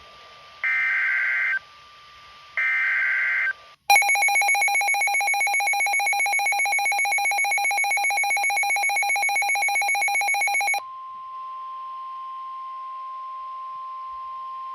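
Weather radio emergency alert for a flash flood warning. Two one-second bursts of warbling SAME digital header data come first. Then a loud electronic alarm pulses rapidly for about seven seconds, and it gives way to the steady 1050 Hz NOAA Weather Radio warning tone.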